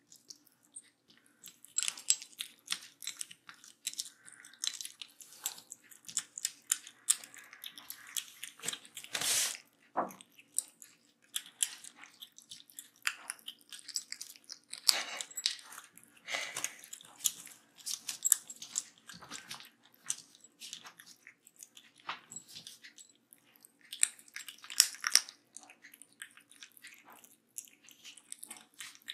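Two kittens crunching dry kibble: a dense, irregular run of small sharp crunches and chewing clicks.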